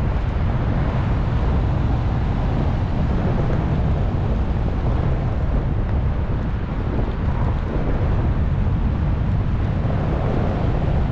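Wind buffeting the microphone outdoors: a steady, loud low rumble with no distinct events.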